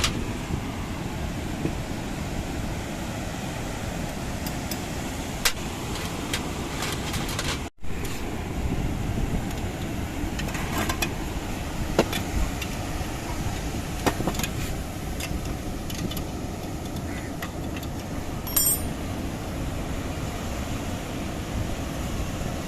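Steady low rumble of wind and surf, with scattered sharp clicks and taps.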